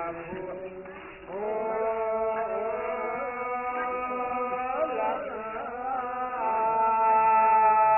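Men's voices chanting a slow Gurung Ghatu song in long, drawn-out notes that glide gently in pitch. The singing grows louder about a second and a half in.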